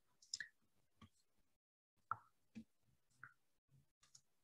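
Near silence, with a few faint, short clicks.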